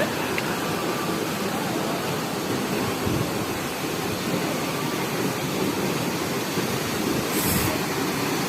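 Steady rushing of a waterfall, a constant even roar of falling water.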